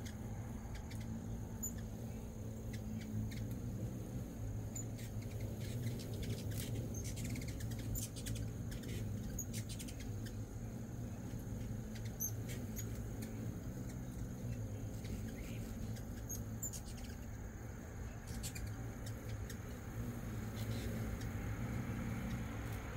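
Hummingbirds giving scattered short, high squeaky chips and chirps over a low, steady background hum.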